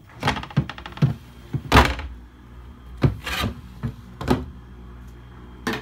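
Sliding glass inner lids of a chest freezer being slid shut by hand: a string of rubbing scrapes and knocks, the loudest a little under two seconds in.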